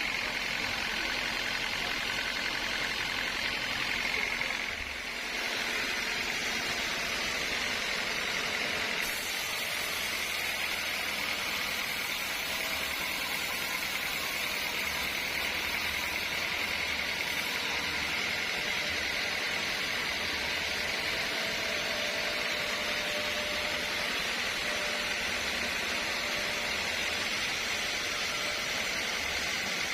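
Sawmill machinery running with a steady hiss and hum, dipping briefly about five seconds in.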